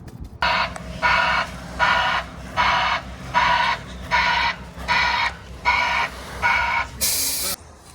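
A vehicle's reversing alarm beeping steadily, about eight beeps at a little more than one a second, then a short, loud hiss about seven seconds in.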